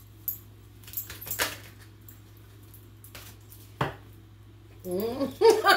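Tarot cards and small objects handled on a tabletop as a card is drawn: a handful of short, sharp taps and clicks spread a second or so apart.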